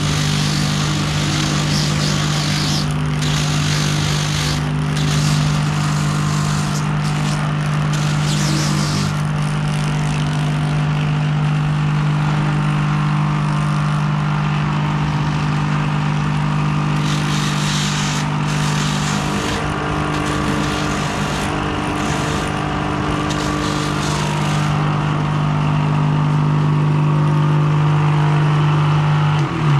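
Hose-fed rotary buffer grinding the rubber of a torn dumper truck tyre in rough stretches, over a steady low machine drone that stops near the end.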